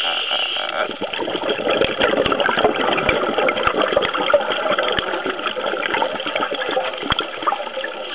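Underwater recording through a camera housing: a dense crackly wash of water noise, dotted with many sharp clicks and knocks, as sea lions swim close around the camera.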